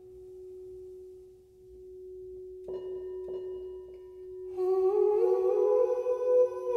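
Golden crystal singing bowl ringing with one steady tone; a little under three seconds in the mallet touches the bowl, and from about halfway a man's voice hums along, stepping up in pitch and louder than the bowl.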